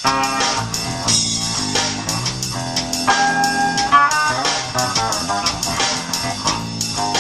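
Dean Rhapsody 8-string bass played over a drum loop: plucked, ringing notes and chords above a steady drum beat.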